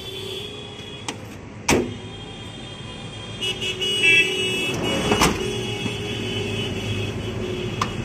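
Road vehicles running, with two sharp knocks, one near the start and one about midway.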